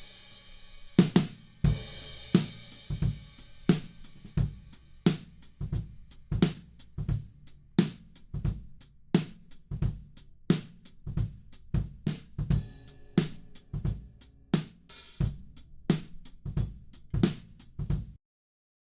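Multitrack drum kit recording played back in a steady groove: kick, snare, hi-hat and cymbals, opening under a ringing cymbal and stopping abruptly near the end.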